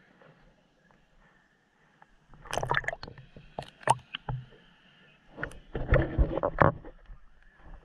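Swimming-pool water splashing and sloshing right at the microphone, in two bursts: one about two seconds in and another near six seconds, with a nearly quiet stretch before the first.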